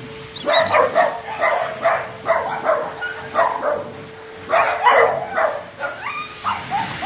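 Several dogs play-fighting, barking in quick bursts from about half a second in, with a few higher rising cries near the end.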